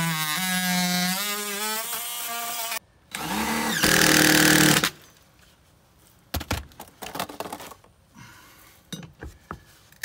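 Handheld power saw cutting into a wooden tongue-and-groove soffit in two runs: a steady run of almost three seconds, then after a brief stop a second, louder run of under two seconds. A few light knocks follow in the quieter second half.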